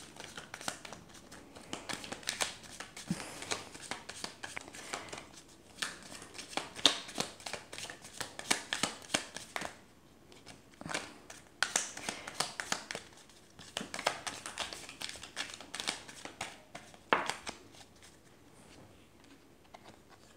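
Deck of oracle cards shuffled by hand: quick clusters of soft card flicks and slaps as packets of cards pass from hand to hand, pausing briefly about halfway and dying away near the end.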